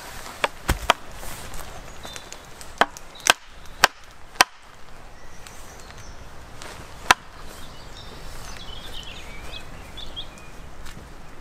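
Hand axe chopping into a log: about eight sharp, separate strikes at uneven spacing, most of them in the first half.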